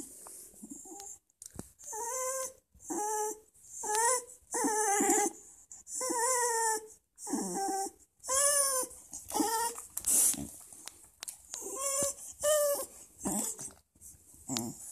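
Welsh terrier "talking": a string of about ten short whining moans, each bending up and down in pitch, with brief pauses between them.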